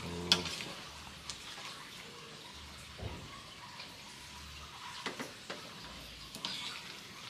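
A pot of sayur asem soup simmering on the stove, a steady watery bubbling hiss broken by a few short clicks and clinks of a utensil.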